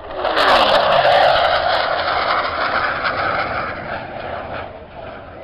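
Display aircraft passing low and fast: a loud rush of engine noise that sets in suddenly, with a tone sliding down in pitch over the first second as it goes by, then slowly fading.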